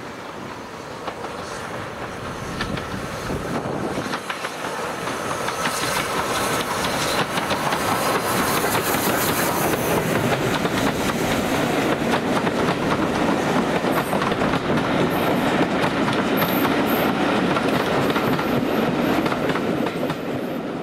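Steam-hauled train running past, growing louder over the first several seconds and then holding loud with a dense rapid clatter of wheels over the rails. The sound cuts off sharply at the very end.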